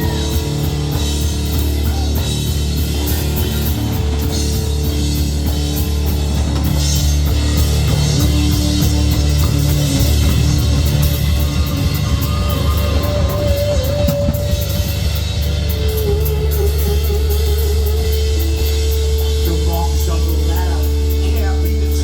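Live band playing loudly, drum kit driving a steady beat under the full band. From about halfway through, a held lead note wavers in pitch above the band.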